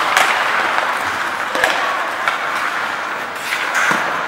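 Ice hockey play on a rink: skates scraping and carving on the ice, with several sharp clacks of sticks and puck over a steady hiss.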